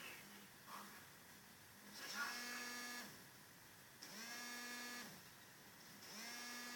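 Mobile phone vibrating on a surface: three buzzes of about a second each, two seconds apart, the vibration motor spinning up and winding down every time. It is the repeating pattern of a phone signalling an incoming call.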